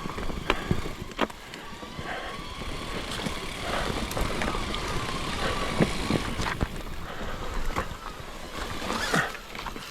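Mountain bike riding along rough forest single-track: rolling tyre noise with scattered knocks and rattles from the bike over roots and bumps, and a faint steady hum underneath.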